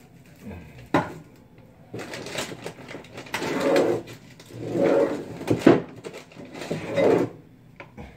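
Rummaging through a shelf of spices and packets: several bursts of rustling packaging, with a few sharp knocks of bottles and jars being moved.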